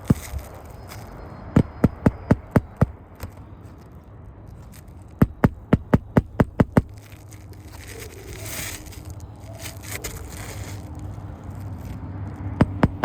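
Hammer driving a roofing nail into a shingle: runs of quick, sharp strikes, about four a second, with a stretch of scraping and crackling of the brittle shingle in between, and another run of strikes beginning near the end.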